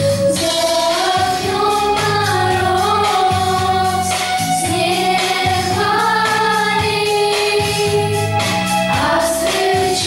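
Girls' vocal group singing a children's song together into microphones, held notes over instrumental accompaniment with a regular bass pattern.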